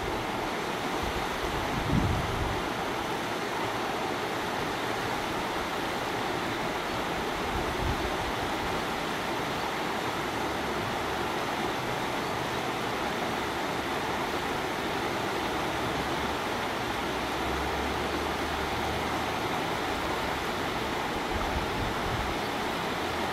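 Shallow rocky stream running over stones, a steady even rush of water, with a brief low thump about two seconds in.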